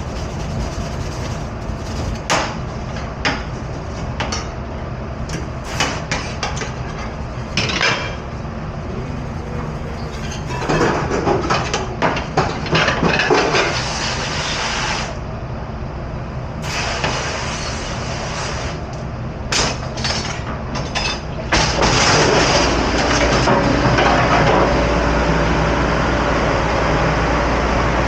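Dishes and utensils clattering and knocking at a commercial kitchen dish station, over a steady machinery hum. About three-quarters of the way through, a louder, steady rushing noise sets in and holds.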